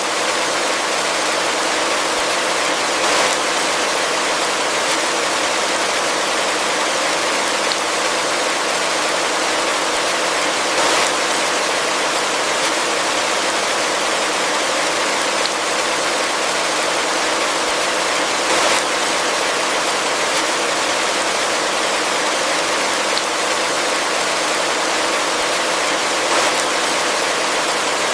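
Heavy rain falling steadily in a forest, a dense even hiss of drops with a few louder single drop hits now and then.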